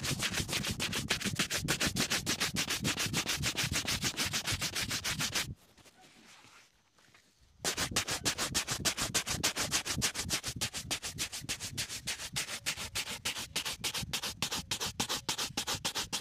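Shoe brush scrubbing a leather shoe in quick, even back-and-forth strokes, bristles rasping over the sole edge and upper. The strokes break off for about two seconds partway through, then carry on.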